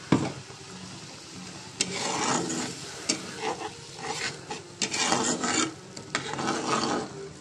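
Metal spatula scraping and stirring a spice paste in a hot frying pan while the paste sizzles. There is a sharp knock at the very start, then irregular scrapes from about two seconds in until near the end.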